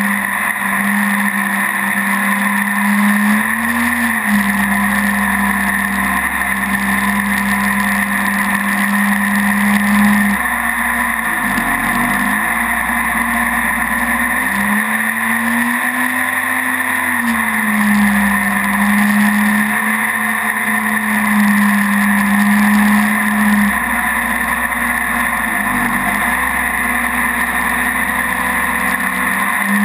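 Mini jet boat's engine running steadily under way, with a steady hiss above it. About eleven seconds in the engine note dips briefly and recovers, then climbs for a few seconds before settling back to its steady pitch.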